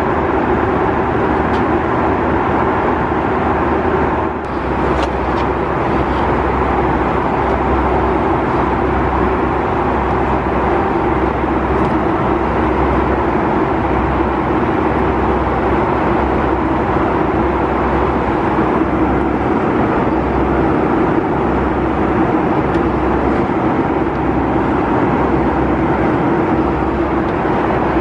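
Steady in-flight cabin noise of a Boeing 757-200: a constant rush of airflow and engine noise with a low rumble. There are a few faint clicks about four seconds in.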